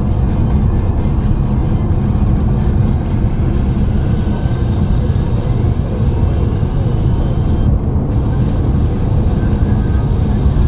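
Steady low road and engine noise of a moving car, heard from inside the cabin, with music playing along with it.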